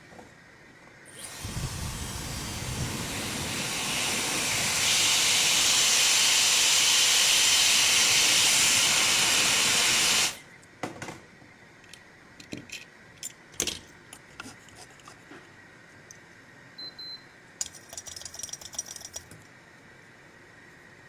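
A steady hiss of air or gas blown from a nozzle lasts about nine seconds, grows louder partway through, and cuts off suddenly. Scattered small clicks and taps follow.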